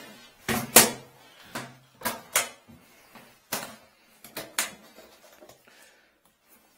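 Hard aluminium-framed equipment case for a drain inspection camera being set down on a tiled floor and opened: a run of sharp knocks and clicks from the case and its latches, the loudest less than a second in, then quieter handling as the lid is lifted.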